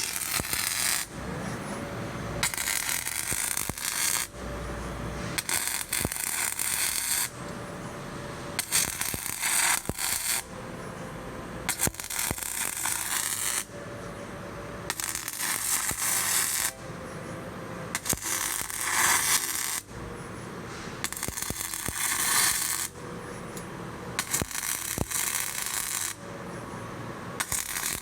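Robotic MIG welding cycle: the welding arc crackles in short welds of one to two seconds each, about ten of them, with brief quieter pauses between welds.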